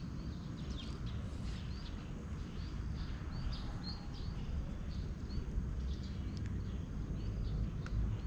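Small birds chirping over and over in short, quick notes above a steady low rumble of outdoor background noise.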